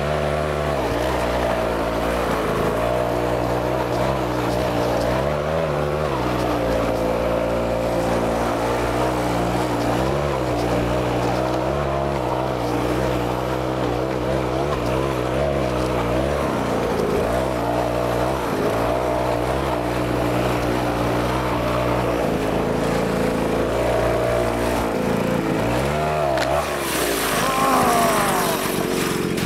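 Small engine of a motorized ski-propulsion belt-track unit running, its pitch rising and falling as the throttle is worked. Near the end it settles to a steadier note under a brief hiss.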